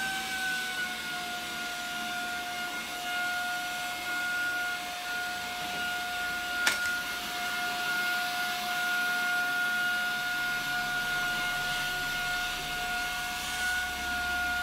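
Vacuum cleaner running steadily, a high whine over a rushing hiss, its nozzle worked over a longhaired kitten's coat. A single sharp knock about halfway through.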